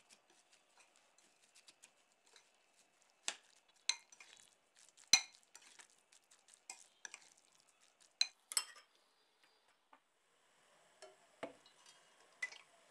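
A spoon mashing and stirring a thick spice paste in a glass bowl, clinking and scraping against the glass at irregular intervals. Near the end the clinks give way to a faint steady hiss as cooking oil is poured into a pan.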